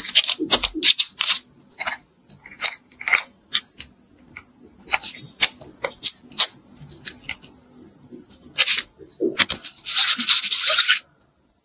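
Modelling clay being pressed and squished by hand and under a plastic mould: a string of short, sticky crackles and squelches. Near the end comes a second-long burst of dense rustling.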